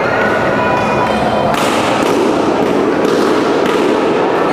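Busy badminton hall: sharp racket strikes on shuttlecocks and footfalls from several courts over a steady background of voices.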